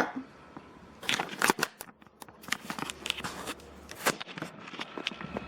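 Handling noise: irregular rustling and sharp clicks as objects are moved about, with a low steady hum coming in about two seconds in.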